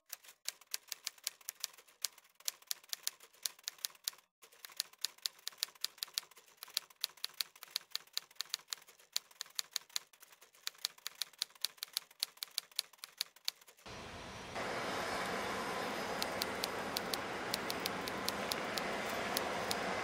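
Typewriter key clicks: a rapid, uneven run of sharp clicks, used as a sound effect for on-screen text typing out letter by letter. About two-thirds of the way through, a steady background hiss comes in beneath the clicks.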